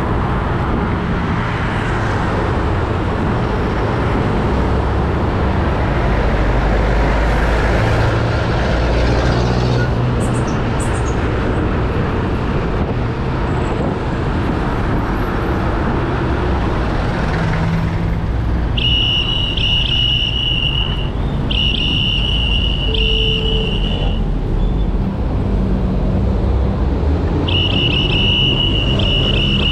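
Wind rushing over a GoPro's microphone while riding a mountain bike through road traffic, a steady heavy rumble. In the second half a high, steady squeal sounds several times, each lasting one to two seconds.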